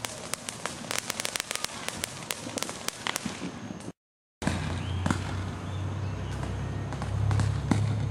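Backyard fireworks crackling: dozens of quick sharp pops over about four seconds. After a brief cut-out, scattered pops go on over a steady low hum.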